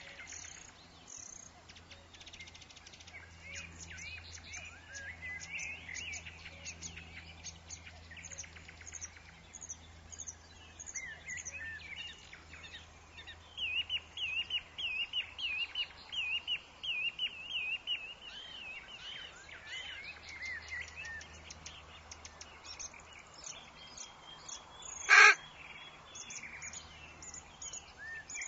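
Several woodland birds chirping and singing, with one bird repeating a fast warbling phrase through the middle. Near the end comes one short, loud call, far louder than the rest.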